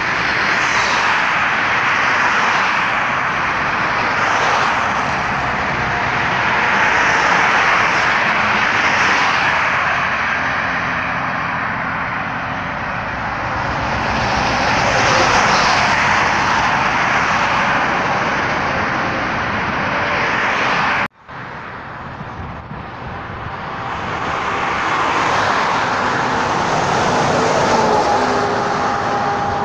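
Highway traffic passing close by: a steady rush of tyre and engine noise that swells and fades as cars and trucks go past, cut off briefly about two-thirds of the way through. Near the end an approaching vehicle adds a faint steady whine.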